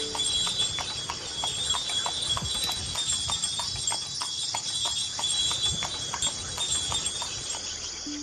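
Outdoor ambience: a steady, high-pitched insect chorus with a regular clopping tick about three times a second running through it.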